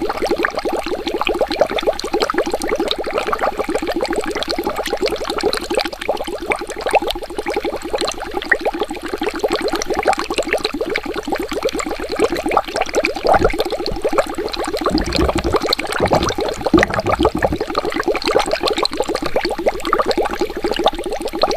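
Water bubbling steadily, a rapid, dense stream of bubbles popping and gurgling, with a few brief low rumbles about two-thirds of the way through.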